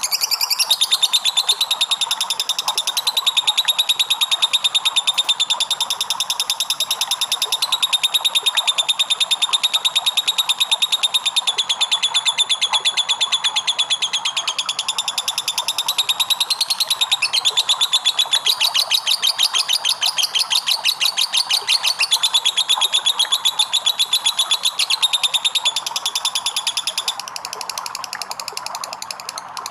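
Lovebird giving a long ngekek: a very rapid, high-pitched chattering trill held almost without a break, briefly changing about two-thirds of the way through, then dropping off near the end.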